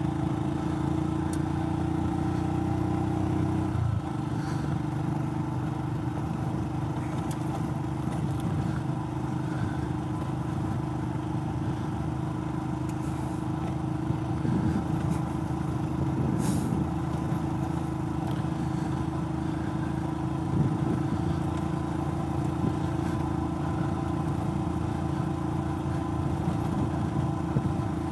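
Royal Enfield Himalayan's single-cylinder engine running steadily as the sidecar outfit rides along a rough gravel road, with tyre noise underneath; the engine note changes slightly about four seconds in.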